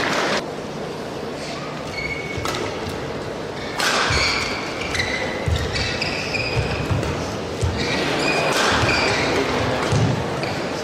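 Badminton doubles rally in a large hall: sharp racket hits on the shuttlecock and short high squeaks of shoes on the court mat. Crowd noise drops away about half a second in, then swells again during the rally.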